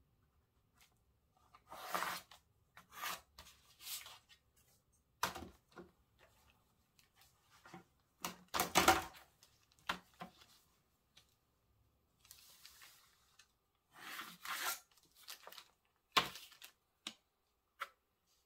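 Irregular rustles, scrapes and short knocks of rulers and paper being handled on a table: an L-square set aside, a long curved pattern ruler laid down and shifted on pattern paper, and pencil lines drawn. The loudest rustle comes about halfway through.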